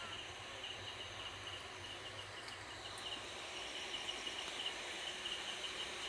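Insects chirping in a steady stream of rapid, even pulses, like a cricket's trill, over a faint low hum that fades out about halfway through.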